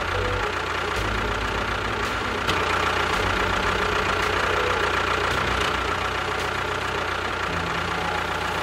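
A motor running steadily with a low, even throb.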